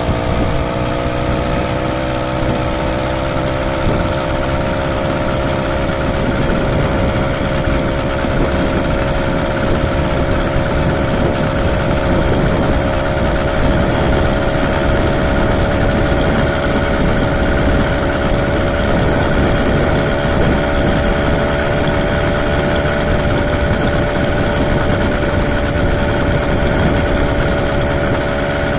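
Motorized bicycle's small engine running steadily while cruising, its pitch easing slightly in the first second and then holding level, over a rumble of wind on the microphone.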